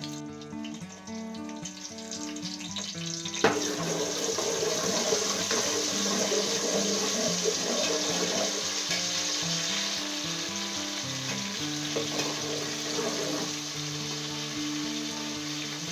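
Sliced red onions frying in hot oil in a pot: a steady sizzle that starts suddenly about three and a half seconds in, over background music.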